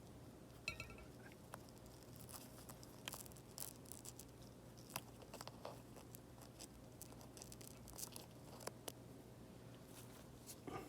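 Faint, scattered small clicks and light scraping of a spudger prying the adhesive-backed home button ring off a replacement iPad mini 5 screen, over a low steady hum.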